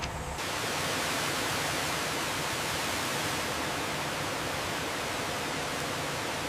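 Water gushing from a large pipe into a tank, a steady rushing noise that sets in just after the start and holds level.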